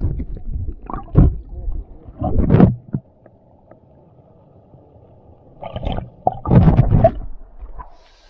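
Stream water heard with the microphone underwater: muffled sloshing and gurgling in heavy low surges during the first three seconds and again around six to seven seconds, with a faint dull murmur in between.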